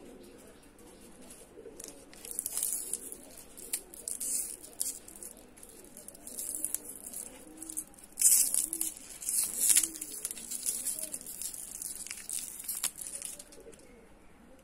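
Plastic lollipop wrapper crinkling and crackling as fingers peel it off the candy, in irregular bursts from about two seconds in until near the end, loudest in the middle.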